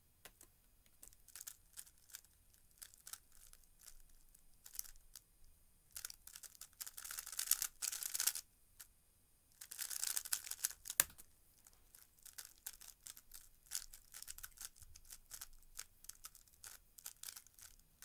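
3x3 speedcube being turned by hand in a speedsolve: a quick run of plastic layer-turn clicks, thickening into two stretches of fast, continuous rattling turns. A single sharp tap ends the fast turning about eleven seconds in, as the solve timer is stopped, and slower, sparser turns follow.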